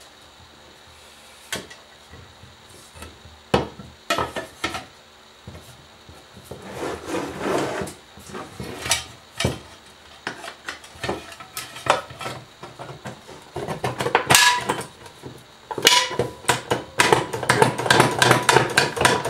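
Irregular clicks, knocks and light rattling of tools and small parts being handled while working on a TIG welder's foot pedal, with short stretches of rubbing or scraping. The clatter gets busier in the last few seconds.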